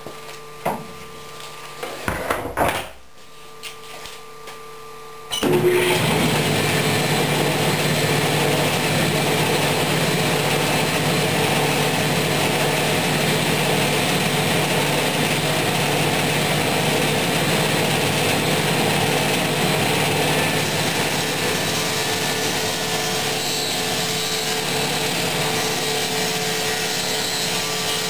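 A few light knocks, then, about five seconds in, a table saw fitted with a stacked dado blade switches on and runs with a steady whir.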